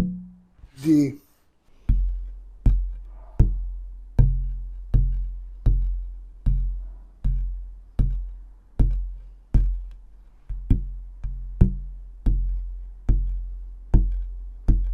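A piece of wood struck over and over, about once every three-quarters of a second, each tap ringing with a deep low note that fades before the next: it is being sounded to find its pitch, a bassy F.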